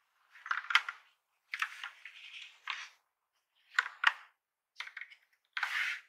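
A Logitech POP Keys mechanical keyboard being handled, giving plastic clicks and knocks in five short clusters.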